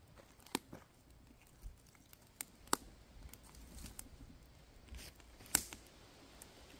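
Split kindling sticks being handled and laid onto a small birch-bark campfire in a steel fire pit: a handful of sharp wooden clicks and knocks, the loudest just past five seconds in.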